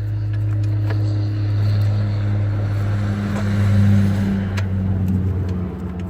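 An engine running steadily with a low hum, swelling to its loudest about four seconds in, with a few faint clicks.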